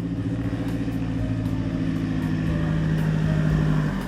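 Ducati Multistrada V4S's V4 engine running under steady throttle on the move, its note growing a little louder, then dropping off sharply about four seconds in as the throttle is rolled off or a gear is changed, over road and wind noise.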